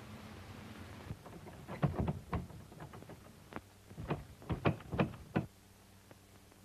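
A series of irregular knocks, a quick cluster about two seconds in, a single knock, then another cluster of about six near the end. Under them runs the steady hiss and low hum of an old film soundtrack.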